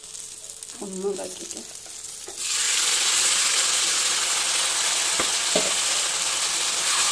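Beef masala tipped into a hot steel kadai of fried shallots and curry leaves: the pan is quiet at first, then starts sizzling loudly about two and a half seconds in, and the sizzle carries on steadily. Near the middle of the sizzle come two sharp knocks, a steel spoon against the pan.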